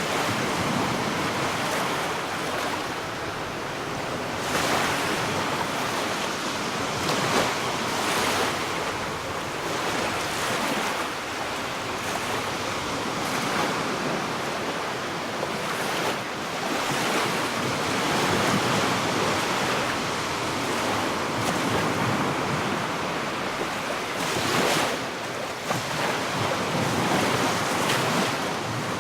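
Sea waves breaking and washing on a sandy beach, a continuous surf wash that swells with each breaker every few seconds, with some wind.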